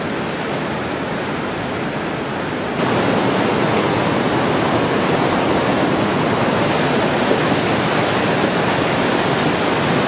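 River rapids rushing over boulders in a steady roar of white water, which gets louder about three seconds in.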